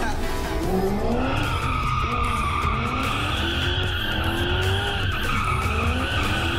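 Sports car drifting in circles: tyres squealing steadily from about a second in, over the engine revving up and down again and again. Music plays underneath.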